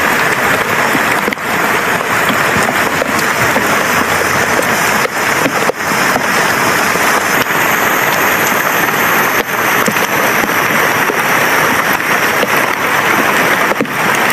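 Heavy rain falling steadily on forest foliage, an even, unbroken hiss.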